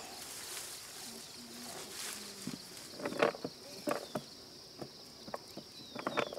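Peanut pods being picked off uprooted peanut plants by hand: a few short sharp snaps and rustles of the vines from about three seconds in, over a steady high insect drone, with short falling bird chirps near the end.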